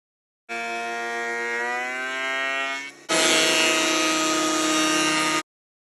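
Electric power-tool motor in two edited bursts. First its whine climbs slightly in pitch as it runs up to speed, then it cuts to a louder, steady whine with a hiss over it that stops abruptly.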